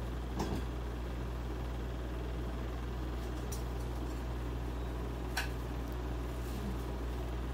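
Steady low background hum of running machinery, with two faint clicks about half a second and five and a half seconds in.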